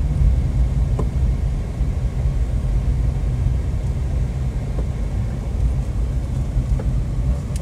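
Steady low rumble of a car being driven, engine and tyre noise heard from inside the cabin.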